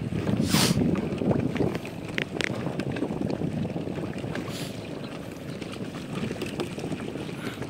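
Wind rumbling on the microphone over water lapping around a small wooden boat, with a short swish about half a second in and faint clicks and drips as a wet gill net is hauled in over the side.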